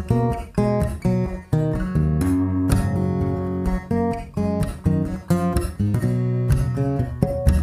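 Background music led by acoustic guitar: a run of quick plucked notes over a steady low line.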